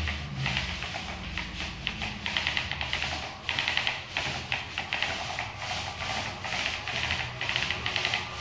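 Paint roller on an extension pole rolling paint onto a concrete block wall: a rhythmic rasping swish with each up-and-down stroke, a few strokes a second.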